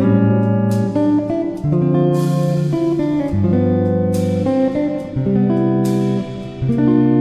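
Background music: guitar over a bass line, the notes changing about every second, with occasional sharp percussive hits.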